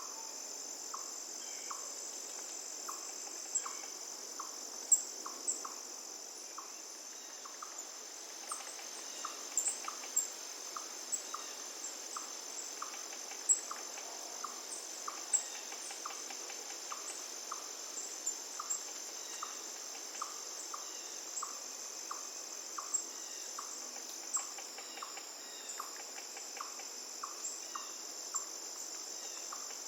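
Forest night-style ambience: a steady high-pitched chorus of crickets, with a lower short chirp repeating about every three-quarters of a second and scattered sharp high bird chirps.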